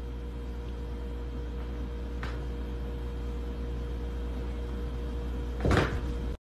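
Steady low mechanical hum of a room, with a faint tap about two seconds in and a short thump near the end.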